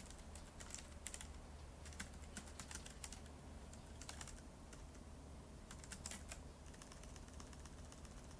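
Faint clicking of keystrokes on a keyboard, typing in uneven runs, over a low steady hum.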